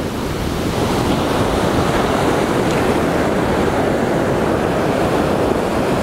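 Ocean surf breaking and washing up a sandy beach: a steady wash of noise that grows a little louder in the first second.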